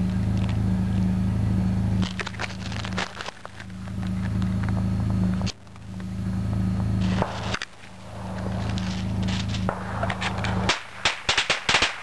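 A steady low engine hum, broken by a few scattered sharp pops, gives way near the end to a string of firecrackers going off in rapid, irregular cracks.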